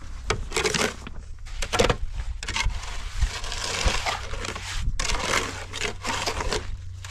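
Shovel scraping and scooping wet concrete mix in a metal wheelbarrow, along with a trowel scraping over wet concrete, in a series of rough, uneven scrapes.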